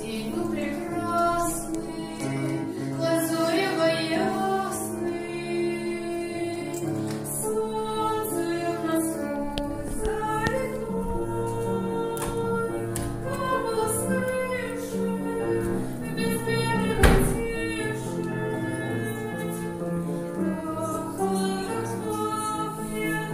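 Music with female voices singing, and one sharp click about seventeen seconds in.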